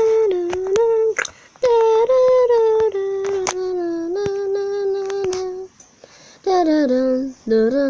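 A child humming a wordless tune in long held notes, each sliding down slightly as it starts, with a pause about a second in and another near six seconds. Sharp little clicks are scattered through.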